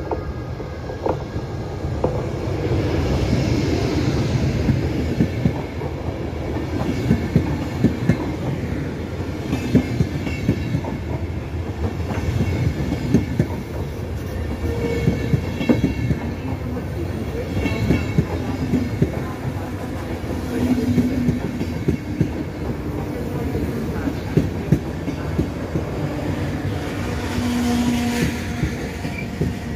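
A DB class 101 electric locomotive and its Intercity coaches rolling past at low speed. The wheels clack steadily over the rail joints, with a few brief squeals now and then.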